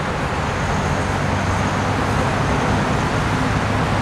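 Steady road traffic noise, a continuous rumble with engine hum underneath and no distinct events.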